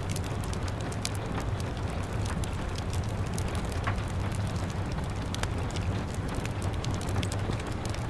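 Steady rain on window glass mixed with a wood fire crackling: many sharp little pops and snaps scattered over a constant hiss and low rumble.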